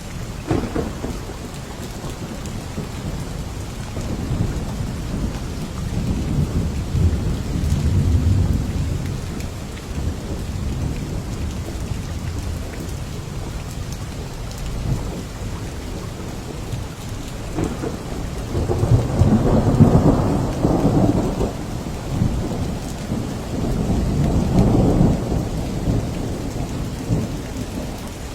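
Steady rain with low rolls of thunder, the biggest swelling twice in the second half.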